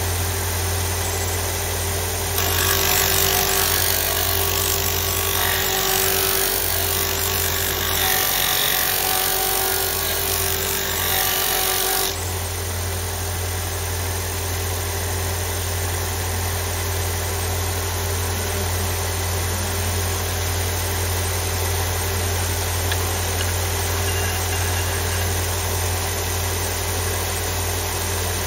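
Allwin MM493C 250 W belt and disc combination sander running steadily with its sanding disc spinning. From about two seconds in until about twelve seconds, wood held to the abrasive adds a louder hiss over the motor's hum.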